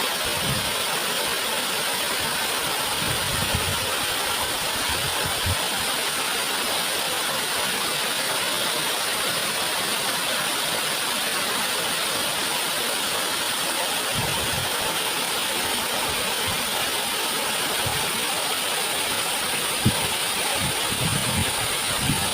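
Waterfall rushing: a steady, even roar of falling water, with a few brief low bumps on the microphone.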